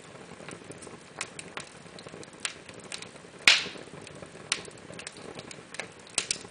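Fire in a fireplace crackling, with irregular sharp pops over a soft hiss; the loudest is a single snap about halfway through.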